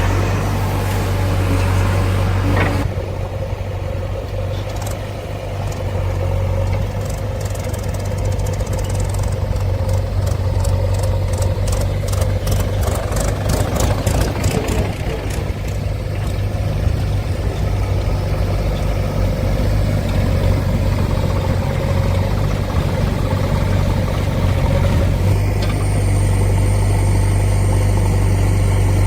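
Heavy diesel engine running steadily at idle with a low drone. A run of evenly spaced clicks comes through for a few seconds midway.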